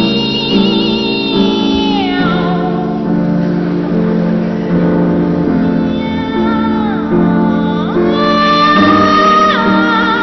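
Boys' choir singing long held notes with vibrato, the voices sliding from one pitch to the next, over piano accompaniment.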